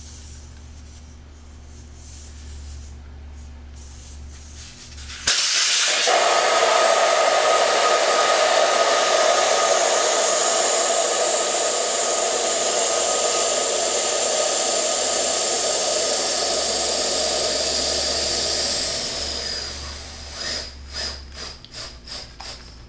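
Air rushing out of a motorcycle tire through its open valve stem, with the valve core removed to deflate it. A loud hiss with a whistling edge starts suddenly about five seconds in, holds steady, then fades near the end into a few short sputtering puffs as the tire empties.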